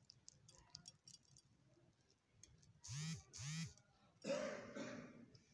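A person's voice: two short vocal sounds about half a second apart, around three seconds in, then a longer breathy sound. Faint clicks are heard before them.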